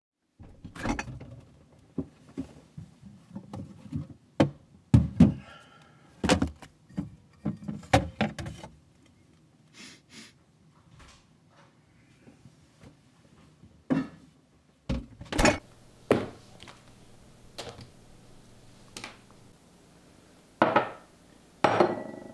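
A run of knocks, thuds and clunks from doors and objects being handled in a kitchen, including a refrigerator being rummaged through and a metal pitcher handled. The knocks come thick and fast for the first nine seconds, then sparser, with a few sharp ones near the end.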